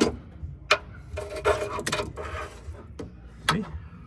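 Flexible magnetic pickup tool tapping and scraping on a car's sheet-metal floor as it collects metal drill swarf: a handful of sharp, scattered clicks with light rubbing between them.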